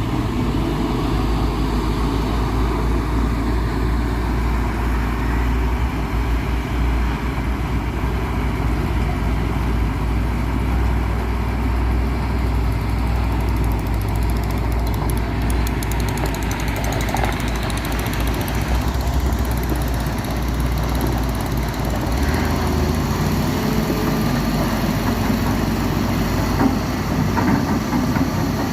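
Heavy diesel engine running steadily with a deep low rumble; the lowest drone shifts down a little about two-thirds of the way through.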